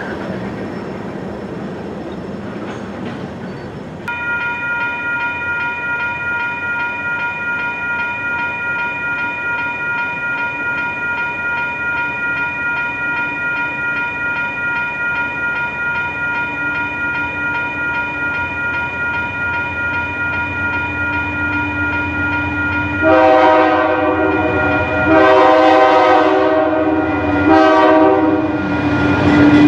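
A train running on the rails. Then, from about four seconds in, a railroad grade-crossing bell ringing steadily, with an approaching locomotive's rumble slowly building. Near the end the locomotive's horn sounds the crossing signal: two long blasts, a short one, and another long one.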